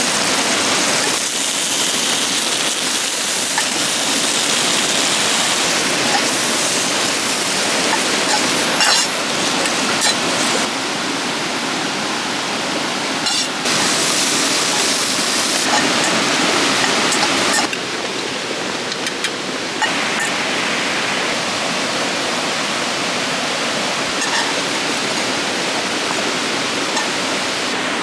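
River water rushing steadily over rocks, its tone shifting abruptly several times between brighter and duller.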